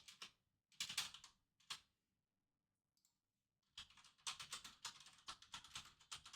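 Typing on a computer keyboard: a couple of short bursts of key clicks in the first two seconds, a pause, then a fast steady run of keystrokes from just past the middle.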